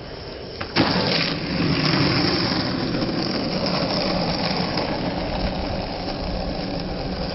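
Skateboard landing with a sharp clack about a second in, then the urethane wheels rolling steadily over rough asphalt.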